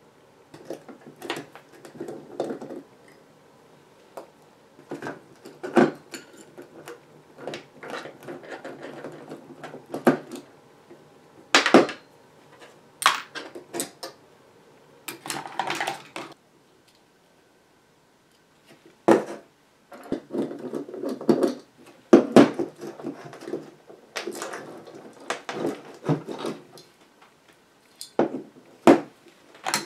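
Irregular clicks, taps and clatter of small metal parts and hand tools being handled and set down on a tabletop while an old amplifier's transformers, tube sockets and wiring are taken apart. A brief silent gap falls a little past the middle.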